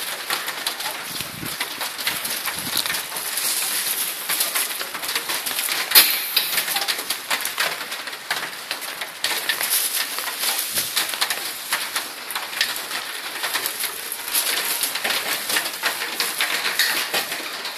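Rain pattering: a steady crackling hiss of many fine drops, with one sharp knock about six seconds in.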